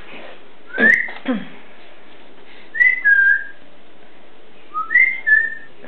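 A person whistling short calls three times: a quick rising whistle about a second in, then two two-note whistles, each a higher note dropping to a lower one, around three and five seconds in.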